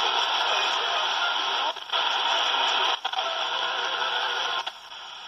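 Retekess PR15 pocket radio's speaker on AM medium wave, giving out a steady hiss of static while it is tuned across the band. The hiss cuts out for a moment twice, about two and three seconds in, and drops quieter near the end.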